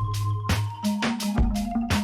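Background electronic music with a steady beat of sharp drum hits about twice a second over held bass notes.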